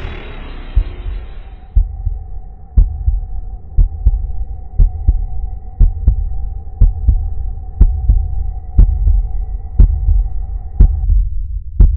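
Heartbeat sound effect: deep thumps about once a second, some doubled, over a low drone, with a steady high ringing tone that cuts off near the end.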